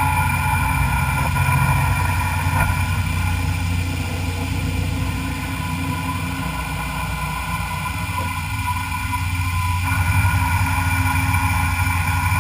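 Milling machine running steadily while machining a metal part, a constant whine with a low hum beneath it that shifts slightly about ten seconds in.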